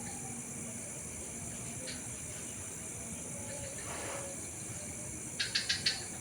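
Night garden ambience: a steady high-pitched drone of night insects, with a quick run of four sharp chirps about five and a half seconds in.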